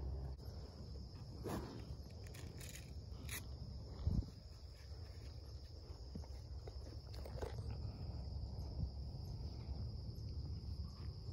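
Crickets chirring steadily with a high, even tone, over a low outdoor rumble. A few faint ticks and a soft thump about four seconds in.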